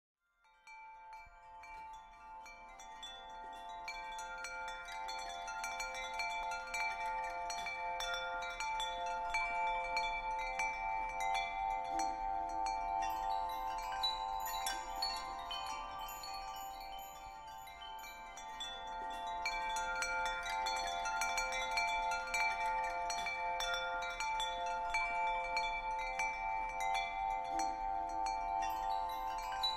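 Soothing background track of chime-like ringing tones: many light, tinkling strikes over a steady ringing drone, fading in over the first few seconds.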